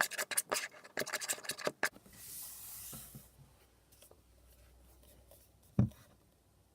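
Spoon scraping and stirring in a bowl of glue slime, in quick scratchy strokes for about two seconds; then a soft hiss, and a single knock near the end.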